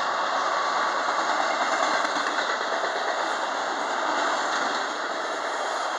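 Enclosed autorack railcars of a freight train rolling past: a steady noise of steel wheels on rail, easing off slightly toward the end.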